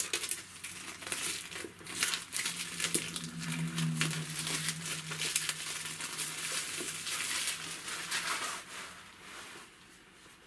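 Packaging being handled: dense, irregular crinkling and rustling of wrapping material, dying down about a second before the end.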